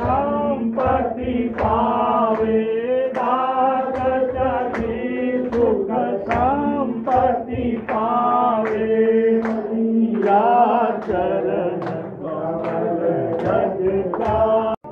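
A group of worshippers singing a Hindu aarti hymn together, with a sharp beat keeping time a little more than once a second. The sound cuts off suddenly near the end.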